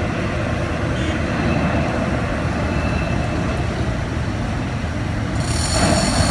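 Sekizli 45+10 t gantry crane moving a suspended 13 m³ excavation bucket: a steady machinery rumble. About five and a half seconds in, a high squeal of several tones joins it.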